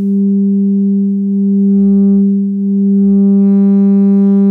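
Small woofer in a 3D-printed ported subwoofer enclosure playing a steady sine test tone at about 198 Hz. It gets louder about halfway through as the amplifier is turned up, and picks up a buzzier edge of overtones as the driver is pushed to about 15 watts and toward its mechanical excursion limit.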